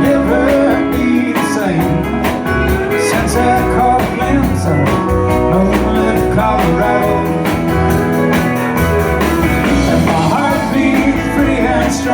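Live country band playing an instrumental passage: guitar lines over bass and a steady drum beat.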